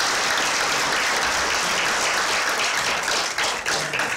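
Audience applauding, a dense steady clapping that thins into more separate claps near the end.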